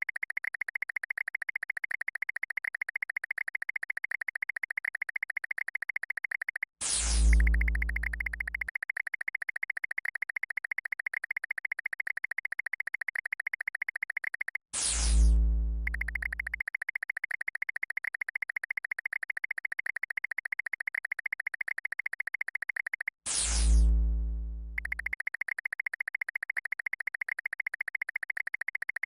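Synthesized sound effects: a steady, rapidly pulsing electronic chirp, cut three times by a sharp downward-sweeping zap that lands in a deep boom of about two seconds.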